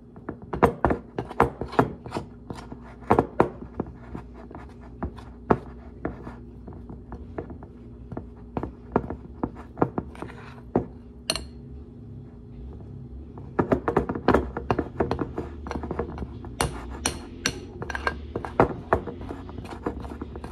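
A spoon knocking and scraping against a glass mixing bowl while stirring biscuit-mix dough for dumplings: irregular clicks several times a second, with a short lull about halfway, then quicker again.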